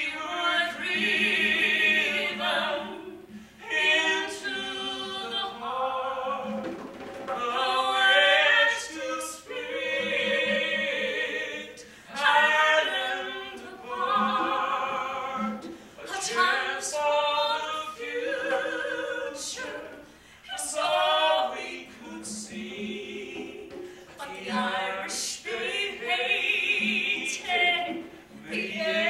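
A man singing in long, sustained phrases with a wavering vibrato, broken by short breaths every few seconds.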